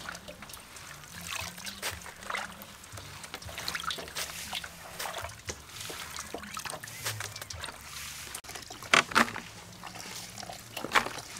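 Hands washing greens in a stainless steel basin of water: irregular sloshing, splashing and dripping, with one louder sharp sound about nine seconds in.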